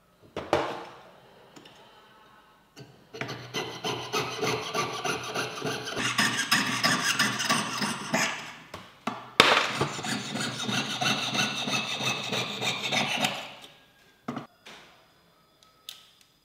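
Jeweller's piercing saw cutting 12k white gold sheet: quick back-and-forth strokes, about three a second, in two long runs with a short pause in the middle. A single sharp knock comes near the start.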